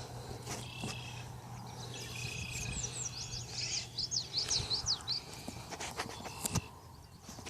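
Small birds chirping: a quick run of short falling chirps in the middle, with a few thin steady whistled notes. A low steady hum runs beneath the first half, and a few sharp knocks come near the end.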